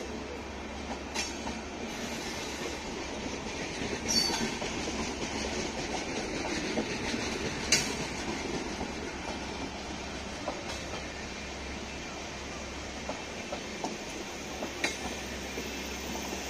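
Indian express train's LHB passenger coaches running past: a steady rumble of steel wheels on rail, with sharp clacks from the wheels every few seconds, the loudest about four and eight seconds in.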